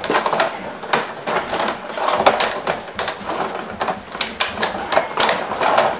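Rod table hockey game in fast play: a rapid, irregular clatter of clicks and knocks from the rods, the metal player figures and the puck.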